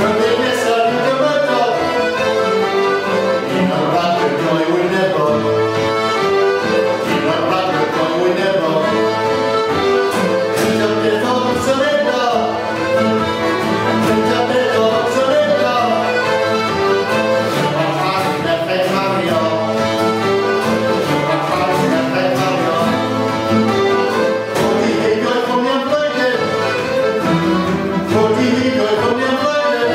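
Instrumental folk tune played on acoustic guitar with a small accordion carrying the melody in sustained reedy notes, continuous and even in level.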